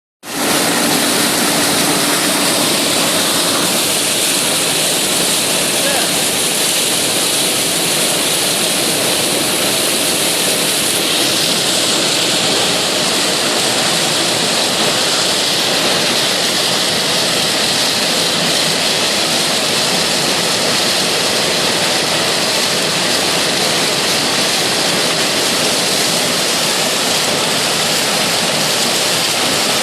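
Massey Ferguson 9690 combine harvester running steadily: a constant loud rushing noise, with a low hum that drops out about four seconds in.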